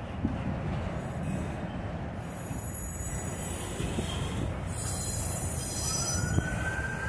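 Freight train autorack cars rolling past: a steady rumble of steel wheels on rail with a few light clanks. About six seconds in, a siren starts wailing, rising in pitch and holding.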